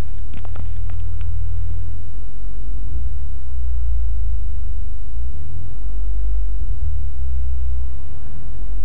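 Low rumble of a turbocharged Kia Forte on the move, heard from inside the cabin, with a few knocks in the first second or so. No distinct blow-off valve release stands out.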